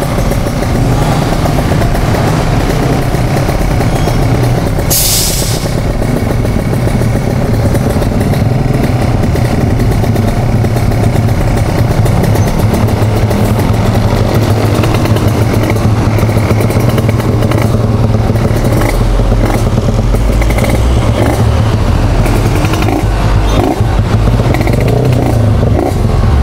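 Kawasaki Ninja RR 150's two-stroke single-cylinder engine running steadily, heard on board the moving bike. There is a brief hiss about five seconds in.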